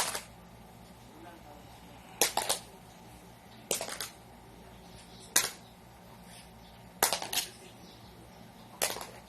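Small magnetic game tiles tossed one after another, each landing on the pile with a short clatter of a few clicks, about every one and a half seconds.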